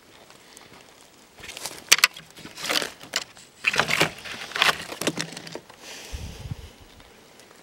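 Dry twigs and brush crackling and snapping in a run of short crackles over a few seconds, the sharpest about two seconds in, as the sticks are handled.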